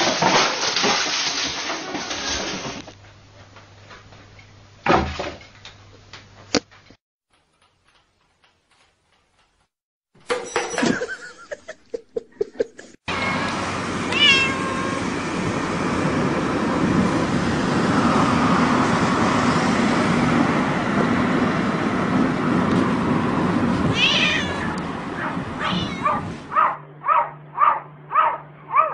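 Cats meowing across a run of short clips. A black-and-white cat yowls with its mouth wide open over the steady road noise of a moving car. Near the end a black cat at a window gives short repeated cries, about two a second.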